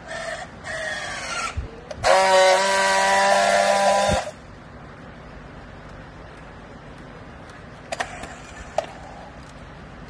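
Handheld battery-powered strapping tool working a plastic strap round a bale: its motor runs in short uneven bursts, then gives a loud steady whine for about two seconds that cuts off sharply. Two light clicks follow near the end.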